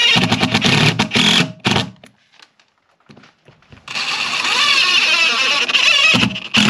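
DeWalt 18V XR cordless impact driver driving screws into timber: a run of rapid hammering blows over the motor whine for nearly two seconds, a pause, another run of about two and a half seconds, then a few short blips near the end.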